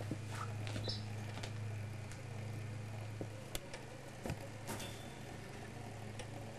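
Steady low hum with a few light clicks and rustles scattered through it, the strongest near the middle and a couple close together a little later.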